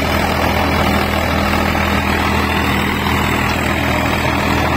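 Swaraj 855 FE tractor's three-cylinder diesel engine running hard and steady while it drives an 8-foot rotavator through the soil, with the rotavator's blades churning underneath. The engine holds its speed under the load, with no drop in RPM.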